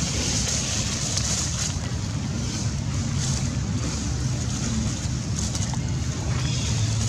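Steady outdoor background noise: a low rumble with a high hiss over it, even in level throughout.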